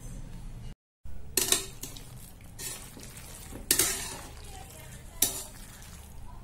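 Metal slotted spatula stirring cooked macaroni in a pressure-cooker pot. It scrapes and clinks against the pot about four times, over a faint steady low hum.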